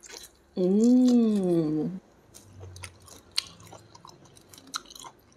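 A person eating a piece of steamed chicken: a long hummed "mmm" of enjoyment, rising then falling in pitch, over about a second and a half. It is followed by quiet chewing with scattered wet clicks and lip smacks.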